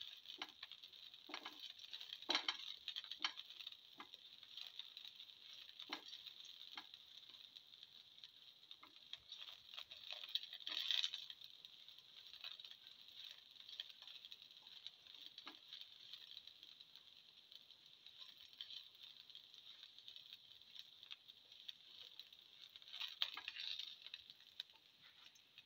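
Shallots dropped one by one into a pan of hot oil, each landing with a light tap or soft crackle over a faint steady sizzle. Near the end a spatula pushes them around the pan.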